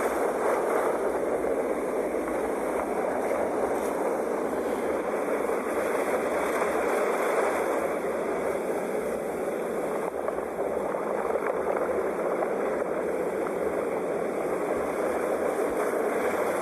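Sea waves washing on the shore: a continuous rushing surf noise that swells and eases gently.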